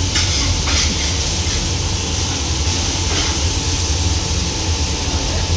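Steady hiss over a low rumble from cooking at the stove, with a couple of short scrapes in the first second.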